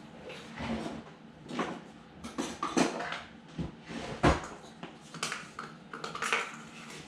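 Kitchen clatter as dry ingredients are measured into a mixing bowl: containers and utensils clinking and knocking on the counter, irregularly, with one sharper knock about four seconds in.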